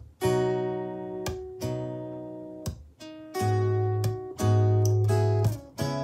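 JBL Charge 5 portable Bluetooth speaker playing a guitar beat: strummed acoustic-guitar chords over a deep bass line, with a new chord struck about once a second.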